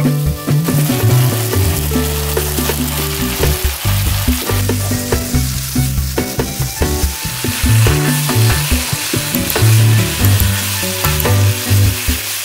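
Pork, onion and chili-soy sauce sizzling in a nonstick frying pan while a silicone spatula stirs and tosses it, with short scrapes and taps against the pan, over low background music.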